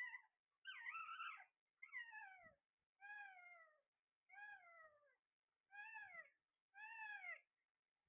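Alexandrine parakeet calling: a faint series of about seven calls, roughly one a second, each sliding down in pitch.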